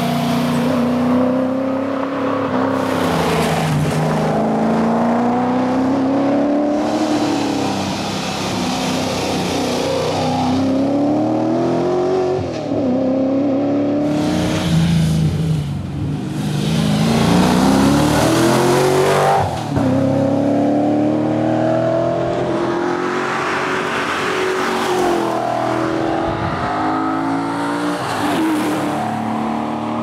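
Triumph TR7 rally car's V8 engine under hard acceleration as the car passes on a tarmac stage. The pitch climbs steadily and then falls back sharply, over and over, at each gear change or lift.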